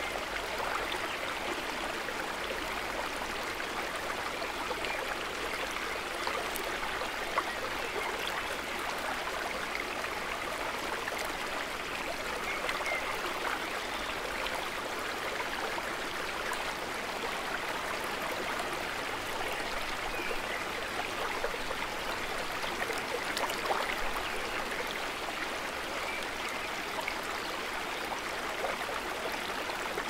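Shallow stream flowing steadily: a continuous rush of running water with fine little splashes and trickles throughout.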